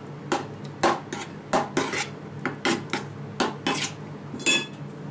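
Metal spoon stirring thick salted fish roe in an enamel bowl, scraping and clicking against the bowl every half second or so. One knock near the end rings briefly.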